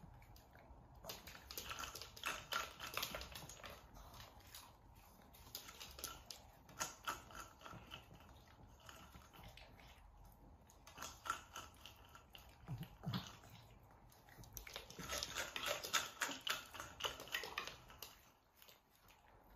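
Bursts of clicking and rattling from a wooden spring-and-ball cat treat toy as a cat paws it and eats the treats, in four clusters a few seconds apart.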